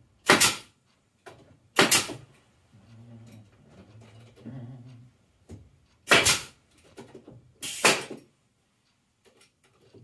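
Pneumatic quarter-inch crown stapler firing four times, in two pairs about a second and a half apart, each shot a sharp bang with a short rush of air as it drives staples into the wooden boards of a beehive box.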